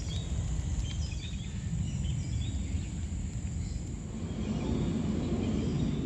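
Outdoor ambience: a steady low rumble, with a few short, high bird chirps during the first half.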